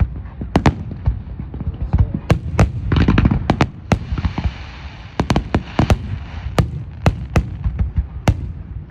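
Fireworks going off: a quick, irregular string of sharp bangs with a low rumble between them, and a stretch of dense crackling near the middle.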